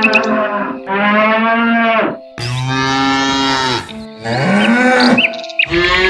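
Cattle mooing: a run of long, drawn-out moos, about five, one after another with short gaps, some overlapping and some lower-pitched than others.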